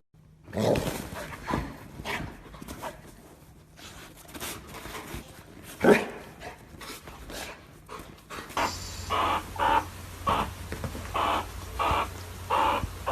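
A dog barking, with a single sharp knock about six seconds in and a quick run of short, evenly spaced barks over the last few seconds.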